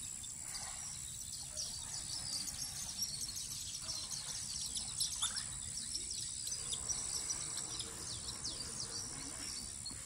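Small birds chirping in many short, quick calls over a steady high-pitched insect drone.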